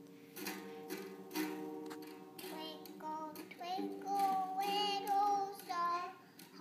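A small child strumming a small acoustic guitar about once a second, the strings ringing between strums, and singing in a child's voice from about halfway through, holding one long note.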